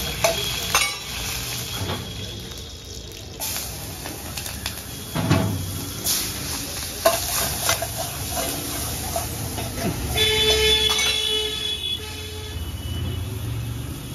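Steel ladle clanking and scraping against a wok over a gas burner, with a string of sharp clanks, over hot oil sizzling and frying.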